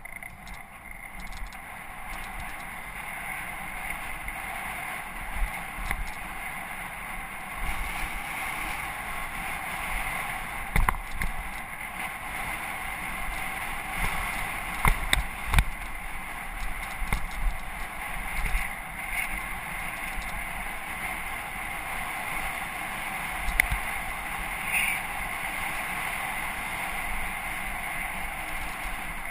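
Mountain bike riding along a dirt trail: steady rolling and wind noise, broken by scattered sharp knocks and rattles as the bike goes over bumps.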